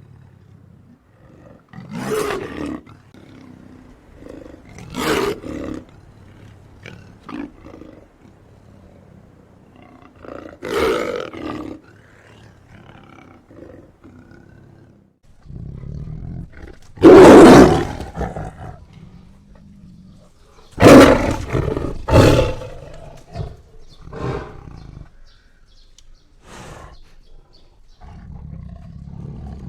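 Monster-cat creature sound effects: a string of separate big-cat roars and snarls every few seconds, with a low rumble between them. The loudest roars come a little past the middle.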